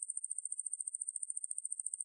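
Large conehead katydid (왕매부리, Ruspolia lineosa) singing a continuous high-pitched buzzing trill, pulsed rapidly at about fifteen pulses a second.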